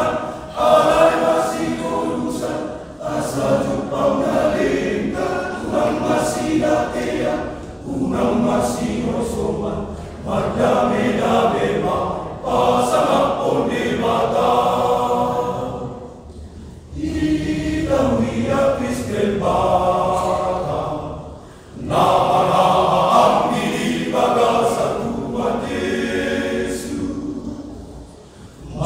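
Men's choir singing a Batak Toba church piece a cappella in several parts, in phrases of a few seconds with brief breaks between them.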